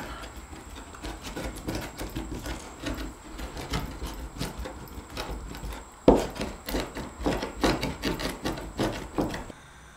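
Vegetables being chopped on a wooden cutting board: a run of quick, uneven knocks. They grow louder about six seconds in and stop suddenly near the end.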